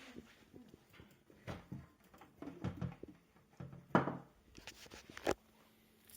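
Irregular clicks, knocks and rustling as TV backlight parts are handled and fitted back together. The sharpest knocks come about four seconds in and again just after five seconds.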